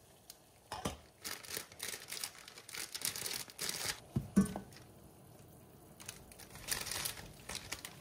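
Plastic instant-ramen packet crinkling and the dry noodle block being broken in half, with crackling that comes and goes. About four seconds in there is one sharp knock as the noodles go into the pot of boiling water.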